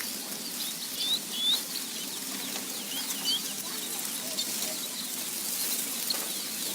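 Many small birds chirping: scattered short, high chirps, a few louder ones about a second and a half in, over a steady hiss.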